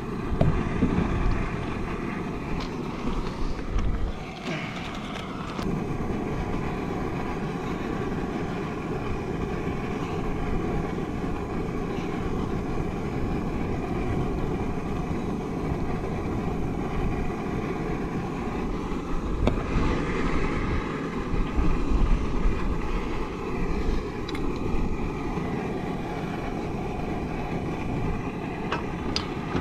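Fishing drone's propellers whining at a steady pitch as it flies, with rushing wind noise underneath.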